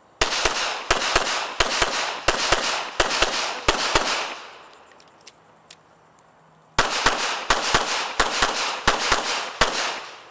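Competition pistol, an Open-division race gun, fired rapidly in quick pairs, each shot with a short echo off the range. About a dozen shots come in the first four seconds, then a pause of about two and a half seconds while the shooter moves, then another string of about ten shots in pairs.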